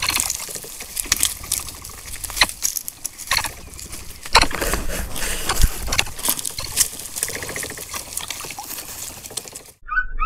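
Outdoor trail-camera audio: irregular clicks and crackles over a steady rushing hiss. It cuts out suddenly just before the end, and a few short chirps follow.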